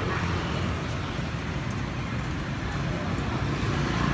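Steady road traffic noise, vehicle engines running close by, with a few faint light ticks.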